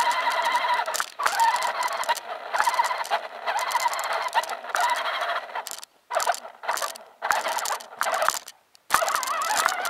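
Motor and gear drivetrain of a 1:6 scale RC 4x4 truck whining as it drives over rough ground, its pitch wavering with the load. In the second half it cuts out and starts again several times as the throttle is let off and reapplied.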